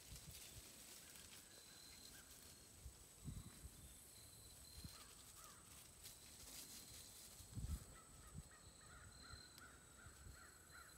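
Near-silent outdoor ambience with faint, repeated distant bird calls. Two soft low thumps come about three seconds in and again nearly eight seconds in.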